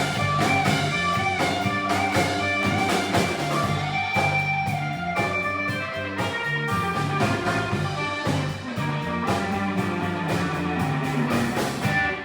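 Live band music: a blues-rock electric guitar solo over bass and drums.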